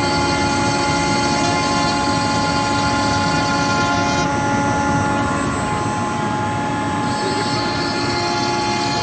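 CNC router spindle running at a steady, high-pitched whine while the bit cuts MDF, with the rasp of the cut mixed in. The hiss of the cut eases for a few seconds midway, then comes back.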